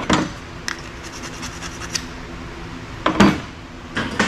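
Small metal parts clinking and clattering inside an old metal toolbox as they are rummaged through, with a run of light ticks and a few louder clatters, the loudest about three seconds in, over a steady low hum.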